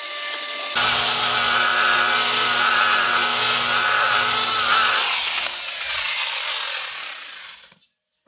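Electric rotary polisher with a buffing pad running against a car's painted bumper, buffing out scratches: a steady motor whine over a rubbing hiss. The whine stops about five seconds in, and the sound fades away near the end.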